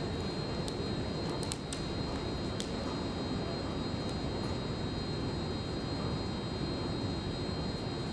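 Steady noise of an underground metro station, with a thin high-pitched whine over it. A few light clicks in the first three seconds.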